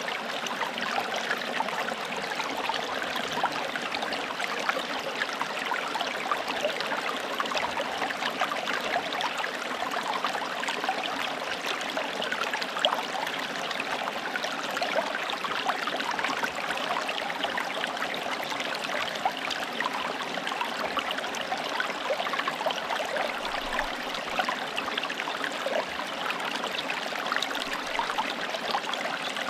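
Forest stream running over stones: a steady babble and trickle of flowing water, with many small splashes and gurgles.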